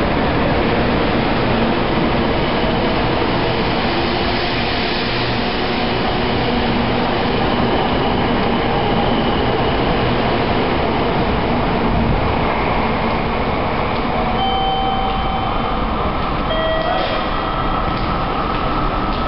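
Tokaido Shinkansen train running past along a station platform: a steady rumble and rushing of wheels and running gear as the cars go by. A few short steady tones sound near the end.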